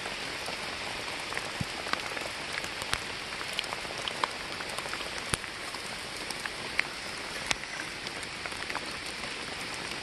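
Steady rain falling, a constant hiss with individual raindrops ticking sharply and irregularly throughout.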